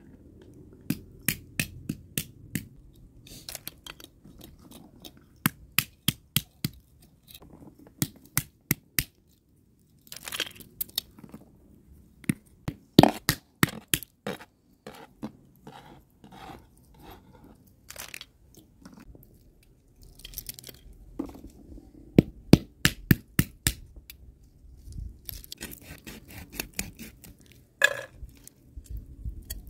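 Knife scraping the scales off a whole raw fish lying on a metal tray: quick series of four to six sharp scraping strokes, with short pauses between the series.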